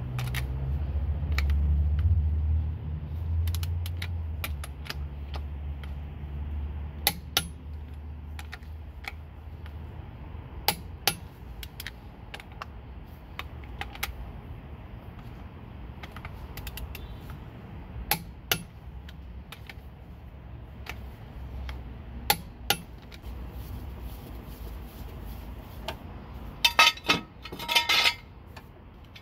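Steel lug nuts clicking and clinking as they are threaded onto the wheel studs by hand, with a low rumble in the first few seconds. Near the end comes a quick run of loud metal clanks as a steel jack stand is picked up and handled.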